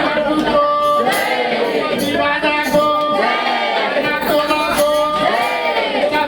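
Music with several voices singing together over short, repeated held notes.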